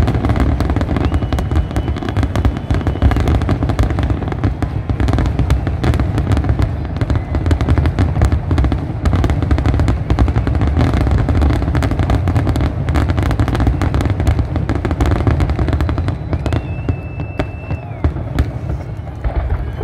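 Fireworks display: a dense, continuous barrage of shell bursts and crackling over a deep rumble. A thin high whistle sounds briefly early on and again, held for about a second and a half, near the end, as the barrage eases.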